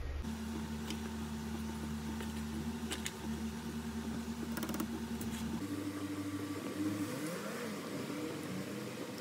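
Steady mechanical hum of a running motor, with a few faint clicks; the hum shifts in pitch a little over halfway through.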